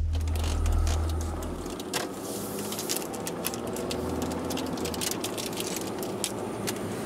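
A deep boom from the title card dies away in the first couple of seconds. After that there is steady engine and road noise inside a moving car's cabin, with frequent small clicks and rattles.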